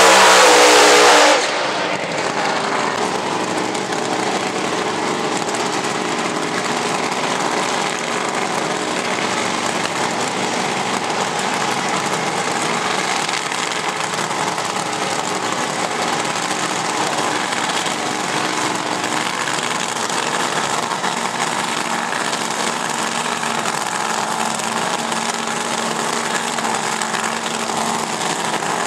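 Top Fuel dragster engines: a loud rev from the burnout cuts off about a second in. Then the supercharged V8s idle steadily as the cars wait at the start line.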